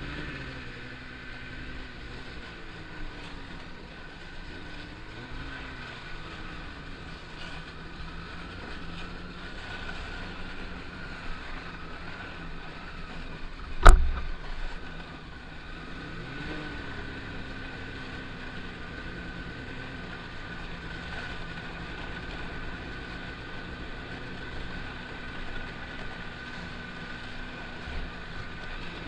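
Snowmobile engine running at trail speed, its pitch rising and falling a few times as the throttle changes. About halfway through comes one sharp, loud knock, the loudest sound here.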